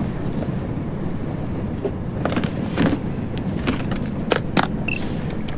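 Steady low rumble of a moving train carriage, with a series of sharp metallic clicks from a metal suitcase's lock as it is worked open. A faint high pulsing beep runs under it and gives way to one short beep near the end.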